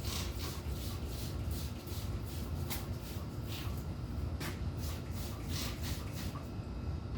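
Repeated rubbing or scrubbing strokes, roughly two to three a second, over a steady low rumble.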